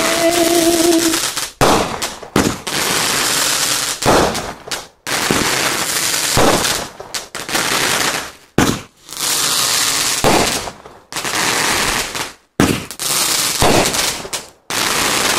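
Aerial fireworks shells bursting into crackling stars: a dense, rapid crackle and popping like gunfire, coming in stretches of a second or two with brief gaps between them.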